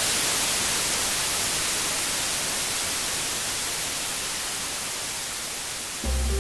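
Television static hiss, an even white-noise rush that slowly fades. About six seconds in it gives way to music with a deep bass note.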